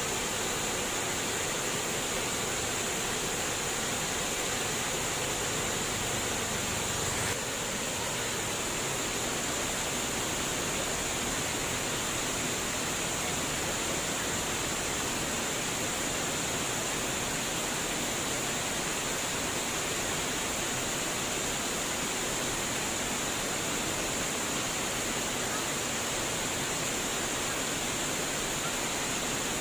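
Flowing, trickling water making a steady, even rush, dipping slightly in level about seven seconds in.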